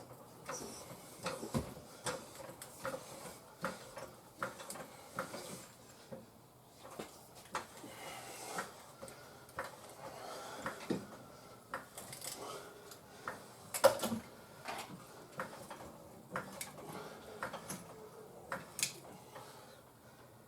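Irregular metallic clinks and knocks of hand tools and wheel hardware while a wheel is being worked on, with one sharper knock about fourteen seconds in.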